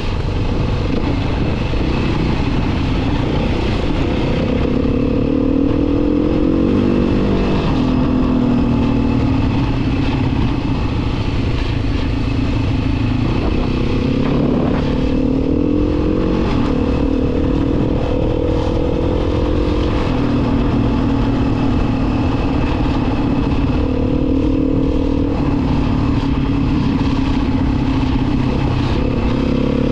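Engine of an off-road vehicle running under way, its pitch rising and falling repeatedly as the throttle and speed change.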